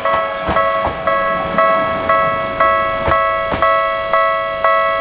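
Railway platform's electronic departure bell ringing: a steady chime of several fixed tones, struck again about twice a second.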